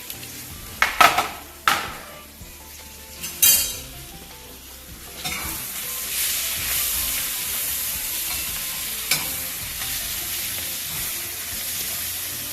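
Food sizzling in a frying pan on the stove, with three sharp knocks in the first few seconds, then steady sizzling that grows louder about five seconds in.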